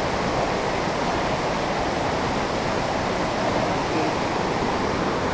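Waterfall on a cold mountain river, water rushing in a steady, unbroken hiss.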